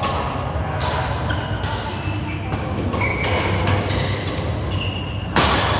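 Badminton rally in a large hall: sharp racket hits on the shuttlecock every second or so and short high squeaks of court shoes, over the reverberant murmur of the hall. A louder burst of noise comes near the end.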